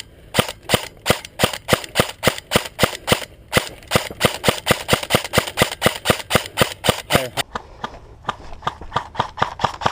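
Airsoft electric M4 rifle firing a long string of rapid semi-automatic shots, about three a second, each a sharp crack. A little over seven seconds in, the shots turn duller and come slightly faster.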